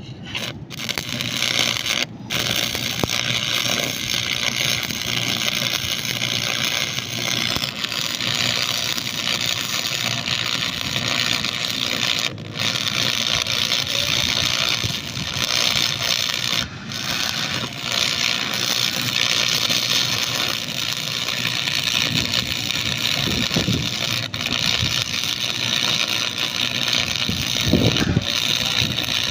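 Stick welding arc crackling and hissing steadily, with a few brief momentary breaks in the arc.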